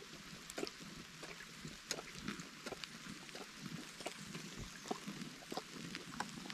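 Donkey eating close to the microphone: irregular crunches and tearing as it crops grass and chews, a few each second, over a steady background hiss.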